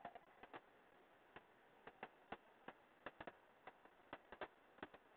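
Faint, irregular clicking of computer keys, a few clicks a second.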